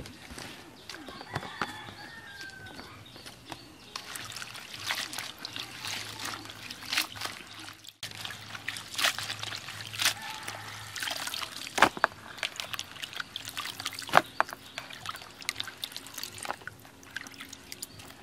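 Hands washing sliced sesbania flowers in a basin of water: irregular sloshing and splashing, with water trickling off as handfuls are lifted out.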